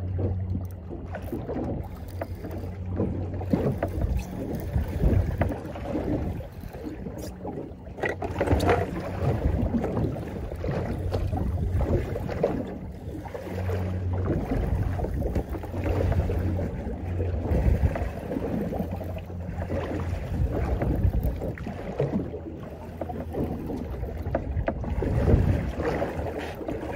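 Wind buffeting the microphone and sea water slapping against a small fibreglass boat's hull, with a low steady hum that fades in and out.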